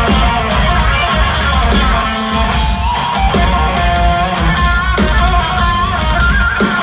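Metal band playing live and loud: heavy distorted electric guitars over pounding drums, with a melodic guitar line gliding over the top.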